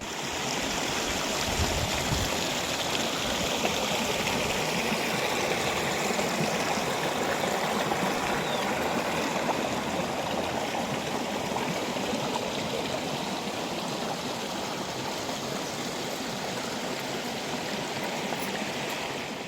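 Fast-flowing stream rushing over rocks: a steady, even hiss of running water.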